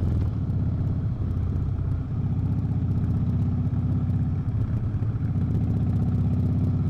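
Harley-Davidson Breakout's V-twin engine running steadily at constant revs, its exhaust loud and low-pitched.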